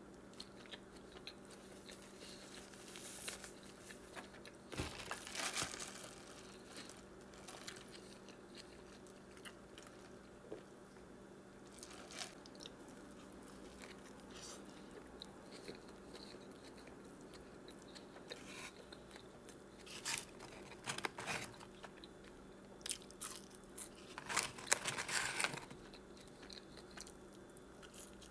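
Close-miked chewing of a McDonald's Big Mac: soft, wet chewing throughout, with louder clusters of biting and crunching a few seconds in and again near the end.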